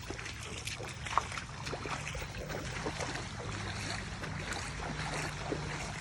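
Lake water sloshing with small scattered splashes, over a low steady hum.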